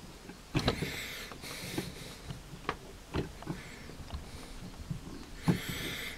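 A threading die in a hand die stock being turned on a steel bolt to chase its threads, with scattered metallic clicks and two stretches of squeaky scraping, one in the first two seconds and one near the end.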